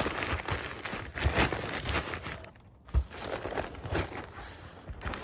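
Crumpled paper rustling and crinkling as it is pressed into a cardboard box, with one dull thump about three seconds in as the cardboard flaps are folded down, then quieter rustling.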